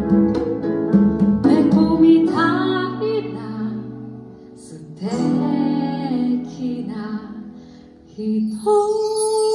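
Live band music: acoustic guitar strumming and a woman singing. The music thins almost to nothing about four seconds in, comes back with another sung phrase, fades again, then a steady held note sounds near the end.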